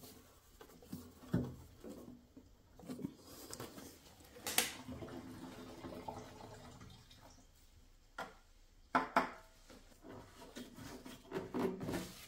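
Gasoline poured from a plastic gas can through its spout into a small plastic fuel tank, faint pouring for a few seconds around the middle. Scattered clicks and knocks from handling parts come before and after it.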